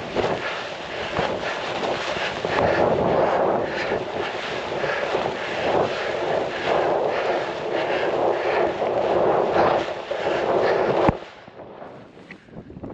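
Wind rushing over the microphone and snow hissing under a rider moving fast through deep powder, swelling and fading with the turns. About eleven seconds in it ends with a sharp knock and drops suddenly to a much quieter wind hiss.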